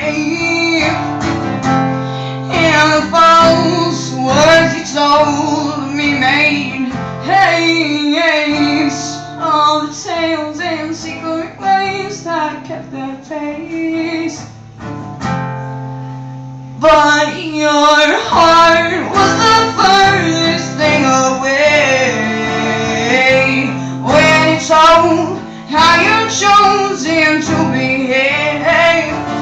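Live music: a woman singing over acoustic guitar. The sound thins out for a moment about halfway through, then comes back in full.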